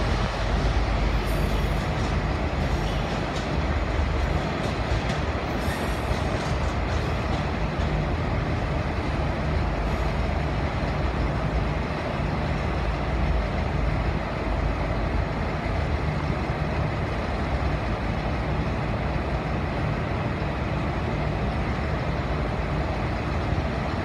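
Steady low rumble of a diesel-hauled passenger train running away over the station tracks and points.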